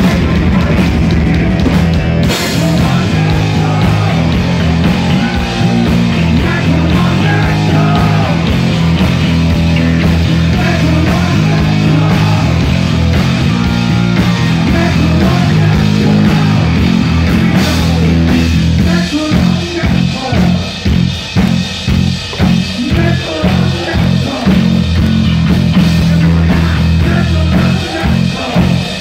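Heavy metal band playing live, loud through a phone microphone: distorted electric guitar, bass and drums, with cymbal crashes. About two-thirds in, the music turns to a pulsing beat of about two hits a second.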